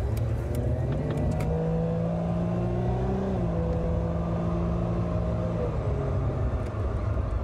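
Car driving on the road, with its engine note and road rumble. The engine pitch climbs as it accelerates, drops suddenly about three seconds in as it shifts up, then holds and sinks away near the end.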